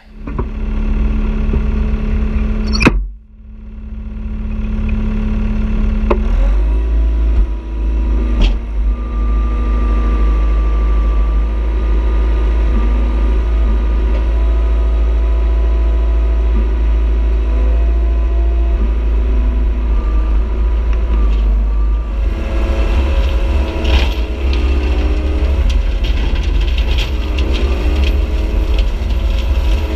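Caterpillar 297C compact track loader's diesel engine running steadily under load as it drives, with a sharp knock about three seconds in. From about two-thirds of the way in the sound turns rougher and busier as the hydraulic brush cutter works into the brush.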